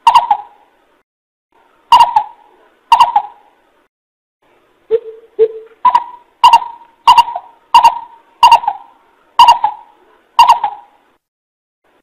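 Greater coucal calling: single hollow, hooting notes about a second apart, each starting sharply, with two lower notes about five seconds in. This is the bird's call used as a lure (kêu mồi).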